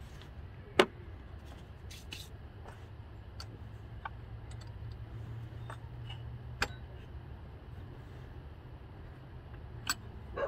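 Scattered sharp clicks and light knocks of hands and tools working loose parts on a turbocharger, over a steady low hum. The loudest click comes about a second in, with others in the middle and near the end.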